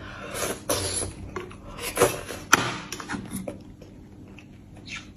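Close-up mouth sounds of eating beef bone marrow, coming in soft bursts over the first few seconds, with one sharp click about two and a half seconds in and quieter after.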